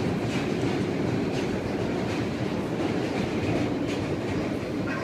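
New York City subway car running on the track, heard from inside the car: a steady wheel-and-rail running noise.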